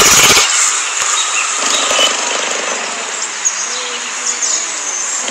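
Recorded cheetah sound played from the phone's speaker by the augmented-reality 3D cheetah: a loud, rough, rumbling noise with a thump at the start and a few high chirps later on.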